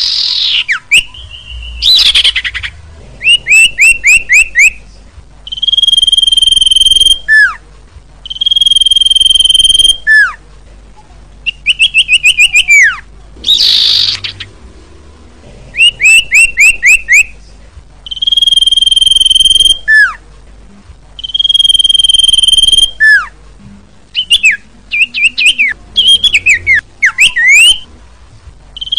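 Common iora singing loudly. Its song is made of long whistles held on one steady note, each ending in a quick downward slur, mixed with fast runs of five or six short rising notes, repeated every few seconds.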